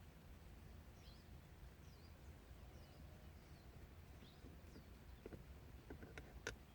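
Near silence, with faint bird chirps about once a second and a few soft clicks near the end.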